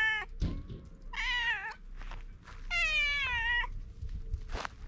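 A tabby-and-white stray cat meowing repeatedly: one call trailing off at the start, then two more meows, the second one longer.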